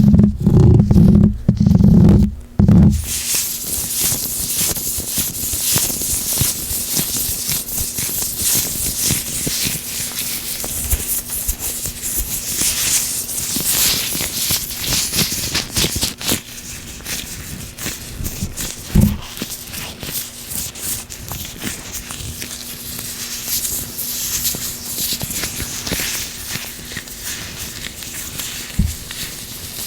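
Gloved hands slick with oil rubbing close to the microphone: dense, crackly, squelching rubbing, with heavy muffled rubbing over the first few seconds and a couple of soft thumps later on.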